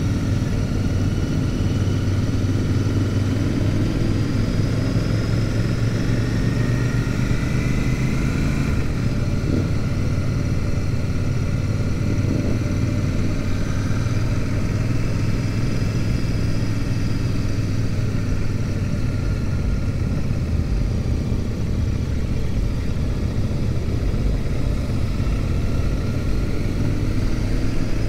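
Royal Enfield Super Meteor 650's parallel-twin engine running steadily at cruising speed, heard from the rider's seat, with other motorcycles of the group around it. The engine note rises for a few seconds about six seconds in and then drops back.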